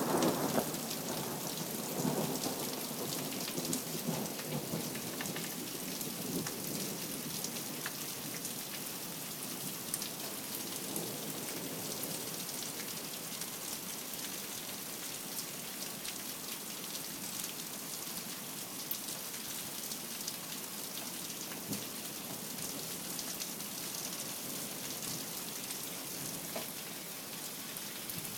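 Rain falling steadily in a thunderstorm, a continuous hiss of drops on the ground. A rumble of thunder in the first few seconds fades out.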